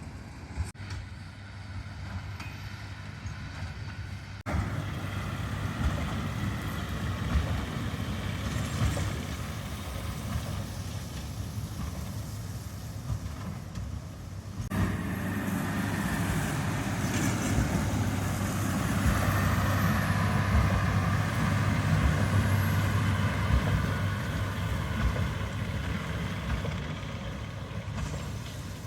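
Heavy farm machinery engine running steadily. The sound changes abruptly about four seconds in and again about fifteen seconds in, growing louder each time.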